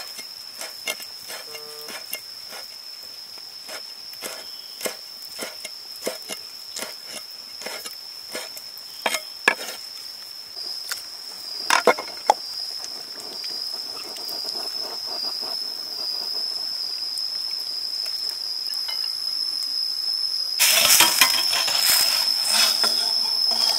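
Cleaver chopping on a wooden cutting board, sharp knocks that are frequent in the first half and thin out. About three seconds before the end, a wok lid comes off and the loud hiss and bubbling of a boiling broth take over. A steady high insect trill runs underneath.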